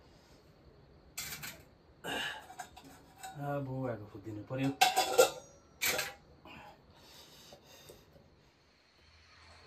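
Metal pots and a kadai clanking as they are moved about and set on a mud hearth, with a metal ladle knocking against them: a few sharp clanks, the loudest about halfway through.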